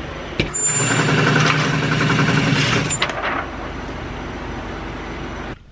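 Shooting-range target carrier motor running for about two and a half seconds, starting and stopping with a click, over a steady background hum.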